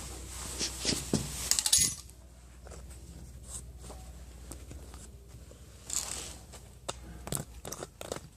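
Small metal parts and tools clinking and rattling as they are handled. There is a busy cluster of clinks in the first two seconds, then a few scattered single knocks.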